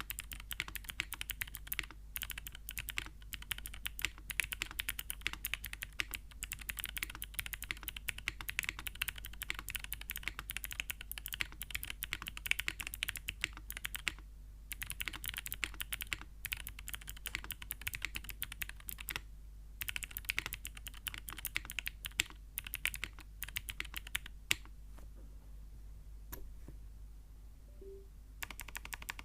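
Fast, continuous typing on a TKD Cycle8 mechanical keyboard fitted with Gateron Melodic clicky switches: a dense patter of sharp keystroke clicks. It breaks off briefly twice around the middle, then thins to a few scattered clicks for about four seconds near the end before picking up again.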